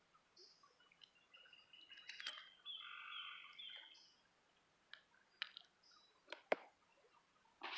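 Faint bird song: a short phrase repeated about three times midway, after a brief chirp. A few sharp clicks follow near the end.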